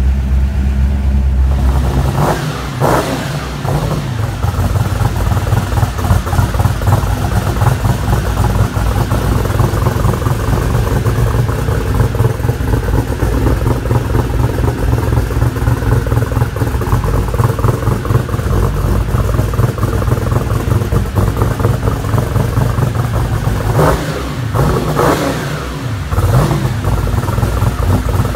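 Twin-turbo 351 Windsor V8 (Dart Iron Eagle block, custom solid-roller cam) in a 1989 Ford Mustang LX running at idle through its stainless exhaust and Vibrant mufflers. The revs go up and come back down briefly twice, about two seconds in and again near the end.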